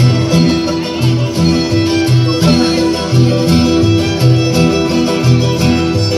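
Live band music: a sousaphone bass line stepping from note to note about twice a second, with bass drum, wind instruments, violins and strummed guitars.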